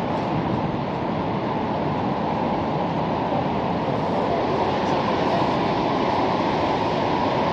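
Steady roar of Shoshone Falls: the Snake River pouring over the falls, an unbroken rush of water that is mostly deep in tone.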